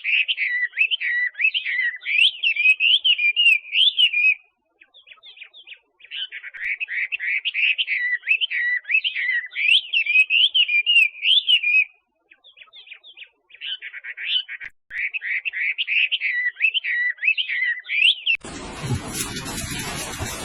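Rapid, high bird chirping in three long bouts with short pauses between them. About 18 seconds in it cuts off suddenly, giving way to a steady rushing hiss.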